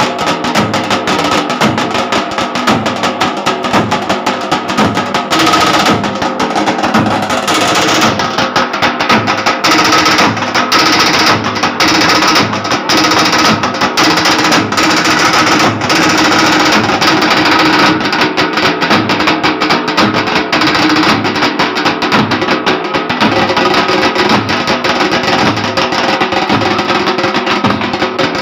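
Several steel-shelled drums beaten with sticks by a group of drummers, playing a loud, fast, steady rhythm without a break.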